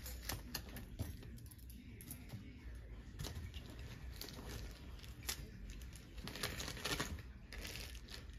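Scattered rustling and light clicking as things are handled and moved about, with a denser run of sharper clicks about five to seven seconds in.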